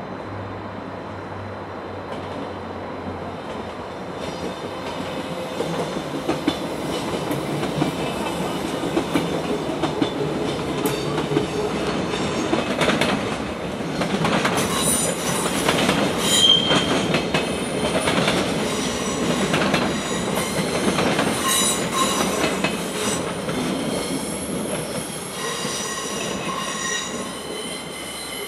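Thurbo regional electric multiple unit rolling over the points and along the platform: wheels clicking over rail joints and switches, with high-pitched wheel squeals coming in about halfway through and continuing to the end. The running noise builds over the first few seconds and is loudest about halfway through.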